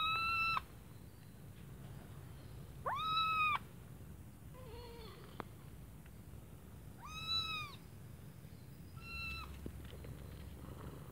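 Kitten meowing four times, high-pitched calls of about half a second each that rise and fall in an arch, with a fainter, lower call about halfway through.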